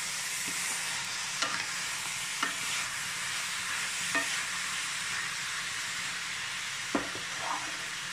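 Chicken pieces with onions and masala sizzling in a nonstick pan as a spatula stirs them, with a few sharp taps and scrapes of the spatula against the pan.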